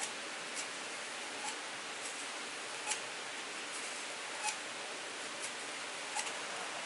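Steady hiss with light, sharp clicks scattered through it, roughly one every second, a couple of them close together near the end.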